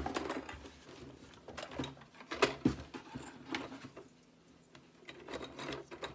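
Handling noise from a small cardboard box of plastic cake-topper figures being picked up and brought onto a wooden tabletop: a few scattered light clicks, taps and rustles.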